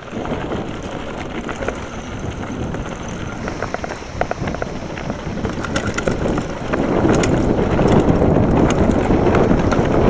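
Montra Backbeat mountain bike riding over a rough, stony gravel road: tyres crunching on loose stones and the bike rattling over the bumps, with wind on the microphone. It gets louder about seven seconds in.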